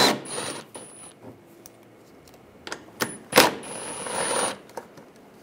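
Ratchet with an 8mm socket backing out bolts: two spells of fast metallic ratchet clicking, the first right at the start, lasting about a second, the second about three and a half seconds in, each set off by a sharp click.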